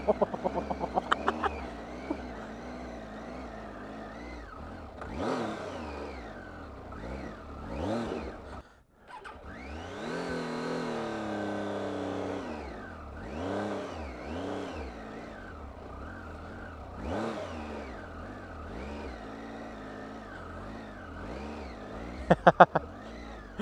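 Onboard sound of a Triumph Tiger 800 XC's three-cylinder engine, its revs rising and falling again and again while riding slowly off-road over grass. There is a burst of sharp knocks in the first couple of seconds and again near the end, and a brief drop-out about nine seconds in.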